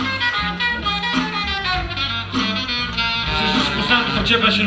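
Live band playing: a pitched melody line over steady bass notes and regular drum strokes.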